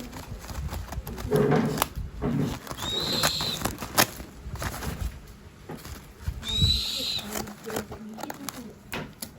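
Handling noise from unpacking a large tortoise: rustling with scattered knocks and thuds, the sharpest about four seconds in, and two short high-pitched squeaks about three and six and a half seconds in.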